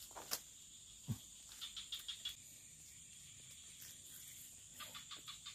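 Faint rustling and clicking of footsteps moving through swamp grass and brush, in small clusters about two seconds in and near the end, over a steady high drone of insects.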